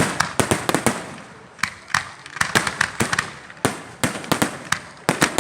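Firecrackers going off in quick, irregular strings of sharp bangs, several a second, with short gaps between the runs.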